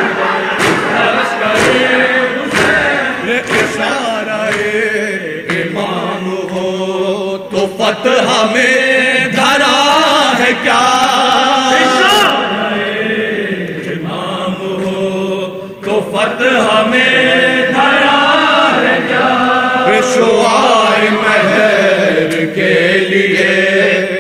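A group of men chanting a Shia noha (lament) unaccompanied, a lead voice with the others joining in chorus. Steady rhythmic chest-beating slaps (matam) keep time beneath the voices, most clearly in the first few seconds.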